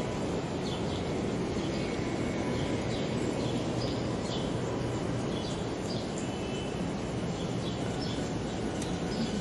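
Steady city street background noise, a low hum of traffic, with small birds chirping now and then.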